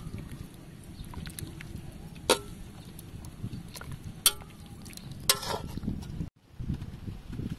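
Metal ladle stirring a large stainless-steel pot of steaming soup, clinking sharply against the pot three times over a low, steady rumble. The sound cuts out briefly near the end.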